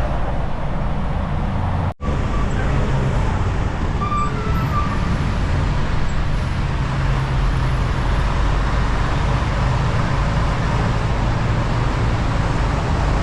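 Steady engine drone and road noise inside a semi-truck cab at driving speed, with wind rushing in through an open window. The sound cuts out for an instant about two seconds in.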